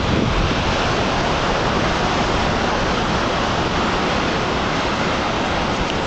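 Atlantic surf breaking and churning against rocks below a cliff, a steady loud wash of water with strong wind buffeting the microphone.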